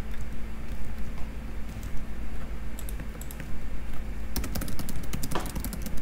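Typing on a computer keyboard: a few scattered keystrokes, then a fast run of typing from about four seconds in.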